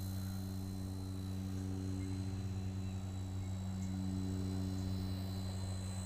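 Blade nano electric RC helicopter in flight: a steady rotor hum with a thin high motor whine, its pitch drifting only slightly.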